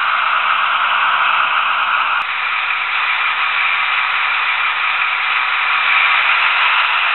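Trix V100 HO-scale model diesel locomotive running with its DCC sound decoder on: a hissy, rattling diesel engine sound from the model's small speaker, mixed with wheel and track running noise. The sound changes abruptly about two seconds in.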